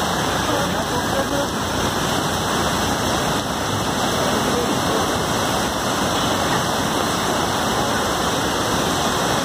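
Steady, unbroken rush of water, as from heavy rain or fast-flowing floodwater.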